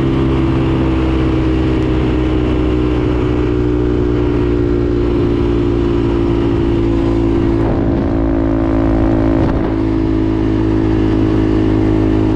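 ATV engine running at a steady, even speed.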